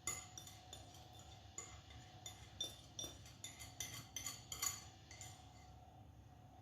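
A utensil clinking repeatedly against a mixing bowl while combining chocolate crinkle batter. The clinks are irregular, a few a second, and stop about five seconds in.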